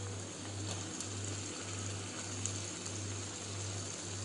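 A faint low hum that pulses about twice a second, over a light steady hiss.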